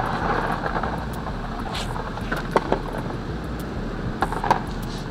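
Handling noises under a car: a scraping rustle for about the first second and a half, then a few scattered light knocks and clicks, over a steady low hum.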